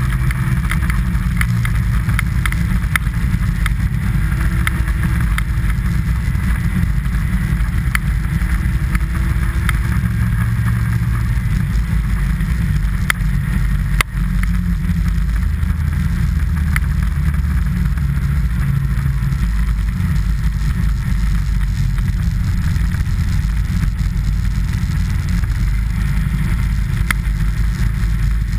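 Steady low rumble of a fast sled run down a packed snow trail, with scattered light ticks and one sharp knock about fourteen seconds in.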